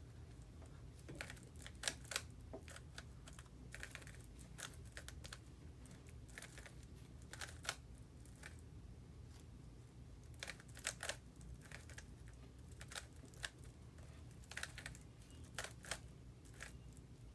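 Faint, irregular clicking of a plastic Rubik's Cube's layers being turned by hand, in quick clusters of clicks.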